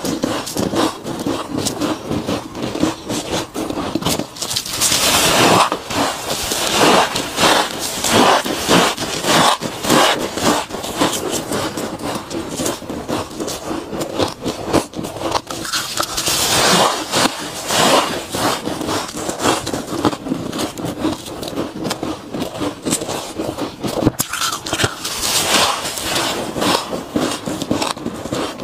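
Mouthfuls of soft freezer frost bitten and chewed: a dense run of crisp, squeaky crunches, with louder spells every few seconds.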